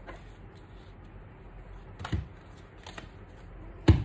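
A tarot card deck being shuffled and handled by hand, with a sharp card snap about two seconds in and a louder one near the end.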